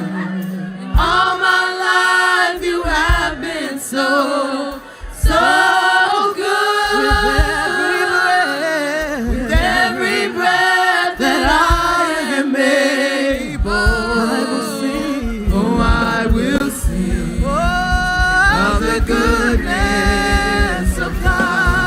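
Worship singing by a group of voices, holding long notes with vibrato and sliding between pitches, with music behind them. A steady beat comes in underneath about two thirds of the way through.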